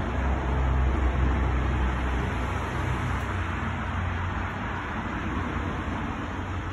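Steady low rumble with a hiss over it, heaviest in the first two or three seconds, then easing a little.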